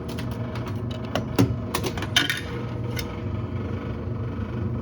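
Quarters clicking and clinking through a vending machine's coin mechanism and into the return cup, with two sharper clanks about a second and a half and two seconds in, over a steady low hum.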